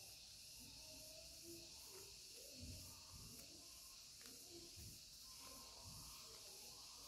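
Near silence: a steady faint hiss, with a few soft, low taps from paper stickers being shuffled in the hands.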